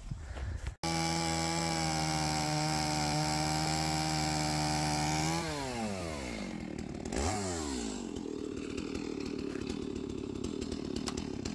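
Stihl chainsaw held at full throttle with a steady high engine note. A little past the middle the throttle is released and the revs drop away, with one quick blip of the throttle. The saw then settles into a rough idle.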